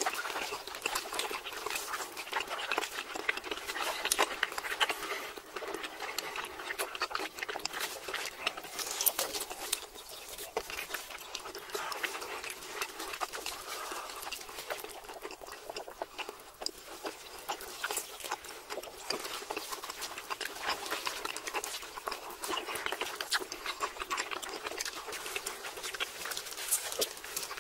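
Close-miked eating sounds of several people chewing steak and stretchy cheese: a continuous run of wet clicks and lip smacks.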